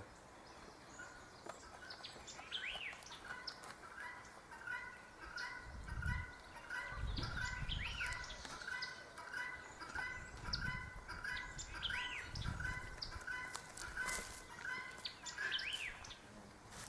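Birds calling: a faint, steady run of short repeated notes, about two or three a second, with an occasional higher arching chirp every few seconds, and a few soft low thuds.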